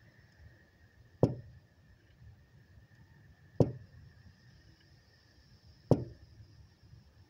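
Three sharp knocks on a solar PV inverter's housing, a little over two seconds apart, each with a short low ring: tapping the case to step the inverter's LCD display to its next page.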